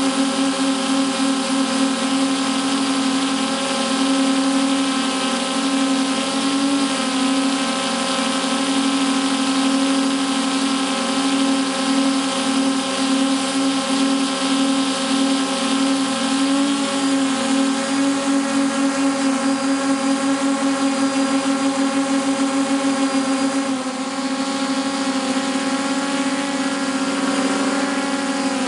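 Electric motors and propellers of a radio-controlled aerial drone, heard close up from the camera it carries, giving a steady pulsing hum. The pitch and level shift briefly about 24 seconds in.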